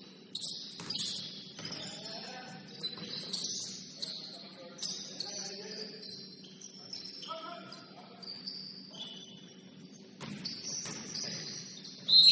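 Basketball court sounds: sneakers squeaking sharply and repeatedly on the hardwood floor, with short knocks from play and some voices. A loud, steady high tone starts near the end.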